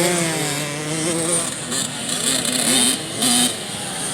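Several youth motocross bikes on the track, their engines revving up and falling off as the riders work the throttle, overlapping in pitch.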